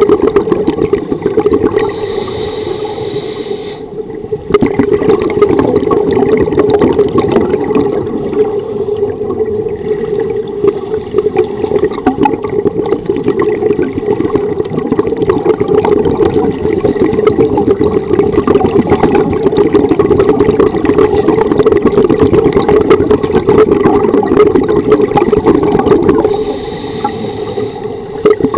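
Scuba divers' exhaled regulator bubbles recorded underwater, a dense crackling rush. It eases to a quieter stretch a few seconds in and again near the end.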